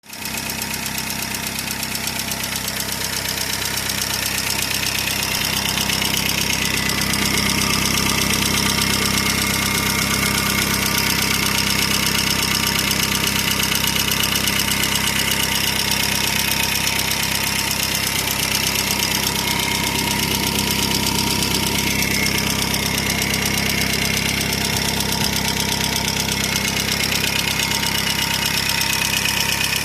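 Volvo S40 2.0 engine idling steadily with a fast, even ticking knock, which the owner places in the cylinder head.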